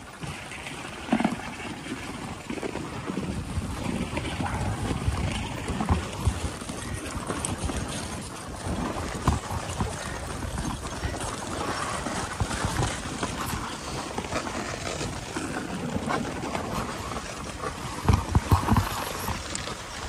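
Dog sled running along a packed snow trail: the runners on the snow and the sled rattling, with louder knocks over bumps, one about a second in and several near the end.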